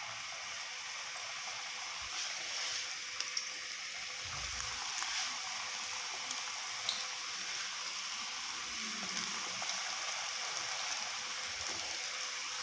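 Chicken vegetable rolls deep-frying in hot oil in a wok: a steady sizzle with a few faint pops.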